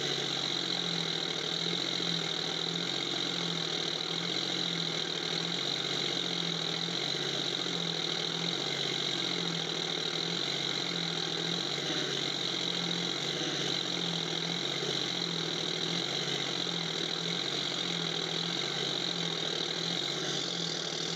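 Tractor engine sound running steadily at idle with an even, repeating low chug. It is a recorded engine sound, not a real engine: the homemade toy has no engine.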